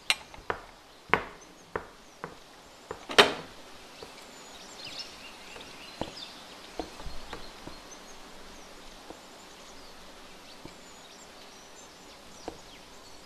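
A run of sharp knocks in the first few seconds, the loudest about three seconds in. After that comes quiet room ambience with faint bird chirps and a few light ticks.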